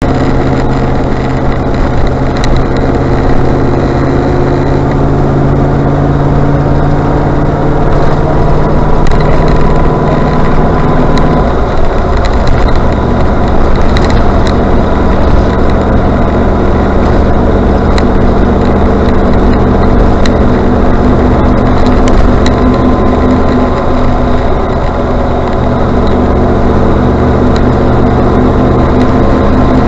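Range Rover Classic on the move: steady engine and road noise, with engine tones that slowly slide in pitch as the speed changes, and a few sharp clicks.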